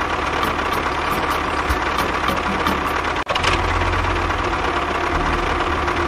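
Steady motor running noise with a brief break a little over three seconds in.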